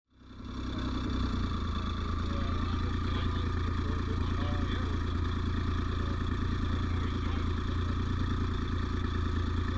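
Twin-turbocharged Honda BF225 outboard's V6 engine running at a steady speed, fading in over the first second.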